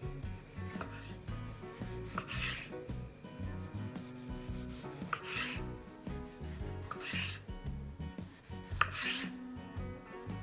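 A kitchen knife cutting food on a cutting board in four separate strokes, each a sharp tap followed by a short scraping swish. Soft background music plays throughout.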